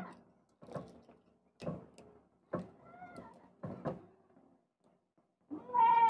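Four sharp clicks and taps about a second apart as wires are fitted to the terminals of a small 12 V battery feeding a homemade inverter. A short call with a rising-then-falling pitch is heard faintly around three seconds in, and a louder one near the end.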